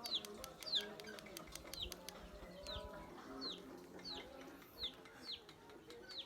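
A bird chirping: one short, high note that falls in pitch, repeated steadily about every three-quarters of a second. There are faint rapid clicks in the first second.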